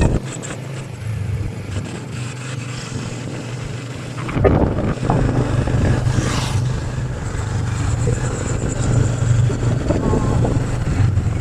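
Motorbike engine running steadily while riding, with wind rumbling on the microphone; the low rumble eases for the first few seconds and comes back about four seconds in.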